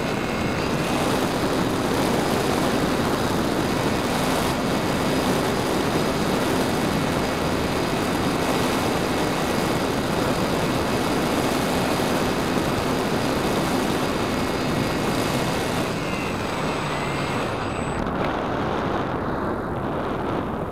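Radian motor-glider's electric motor and propeller running steadily with a high whine, over heavy wind rush at the airframe-mounted camera. Near the end the motor cuts out, leaving only wind rush as the plane glides.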